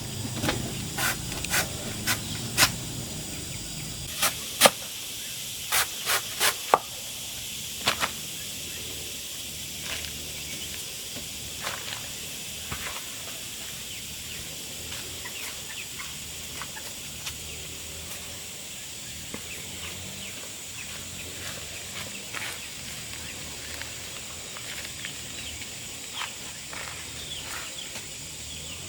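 About a dozen sharp knocks in the first eight seconds, then a steady hiss with faint high chirps.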